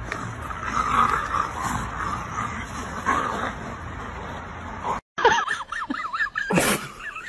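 Two dogs tussling over a stick against a steady noisy outdoor background. After an abrupt cut, waterfowl call in a rapid wavering chatter as a dog charges at them, with a sudden loud burst about six and a half seconds in.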